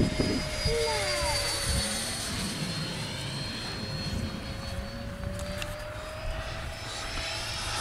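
Electric ducted fan of a 75 mm 6S RC jet, the HobbyKing Tornado Viper Jet, whining steadily in flight. The pitch sags slightly, then rises and grows louder near the end as the jet comes closer.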